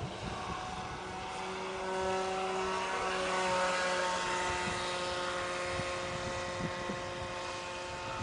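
RC speed boat's 775 brushed electric motor running flat out, a steady whine that swells as the boat passes close about three to four seconds in and then eases, with a hiss of water spray over it.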